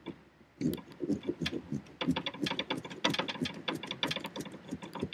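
A pumpkin's shell being cut with a carving tool in quick sawing strokes, heard as rapid, irregular clicks that start about half a second in.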